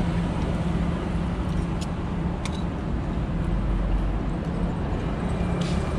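Steady low rumble with a constant hum, broken by a few faint light clicks.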